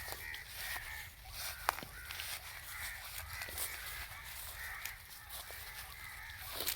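Birds calling over and over, with a single sharp click just under two seconds in.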